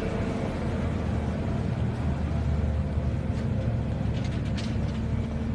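Forced-action concrete mixer with its pump running, a steady low mechanical hum, with a few faint scraping rattles about three to four and a half seconds in.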